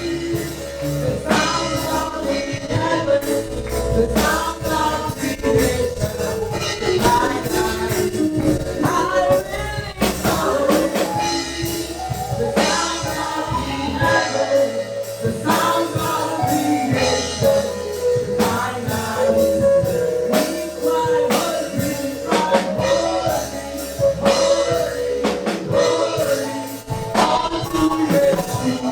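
Live gospel praise music: a choir singing over a band with tambourine and a steady beat.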